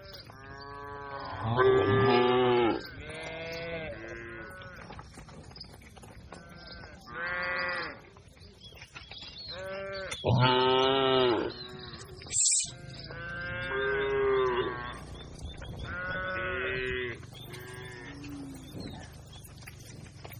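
A herd of cattle mooing, about a dozen separate calls overlapping and answering one another, two of them much louder than the rest. The sound cuts out completely for a moment about twelve seconds in.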